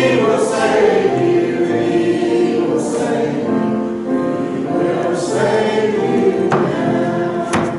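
Church congregation singing a hymn together, many voices holding long notes, with a sharp click near the end.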